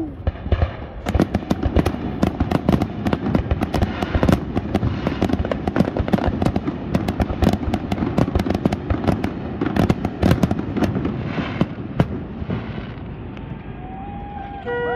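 Fireworks finale: a rapid barrage of aerial shell bursts and crackling reports, many sharp bangs each second, thinning out after about twelve seconds. Steady horns start sounding near the end.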